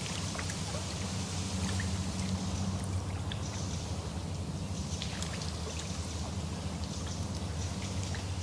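Small waves lapping at a lake shore: a steady water wash with many small splashes and drips.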